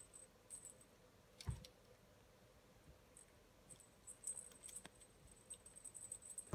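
Near silence, broken by faint scattered clicks and one soft thump about a second and a half in, from a cat moving about on a carpeted cat tree.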